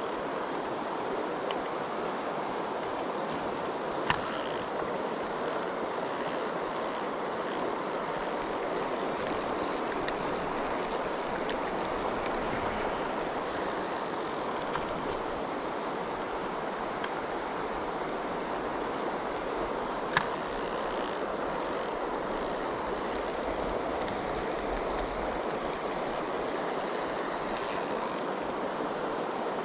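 Mountain stream water rushing, a steady even noise of flowing water, with two brief sharp clicks, about four seconds in and again about twenty seconds in.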